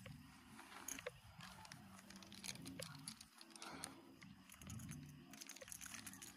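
Near silence: faint rustling with a few small clicks.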